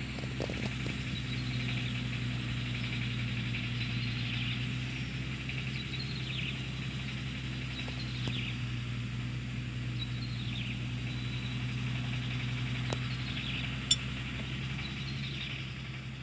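An engine idling steadily with a low hum, and a bird giving short falling calls about every two seconds over it.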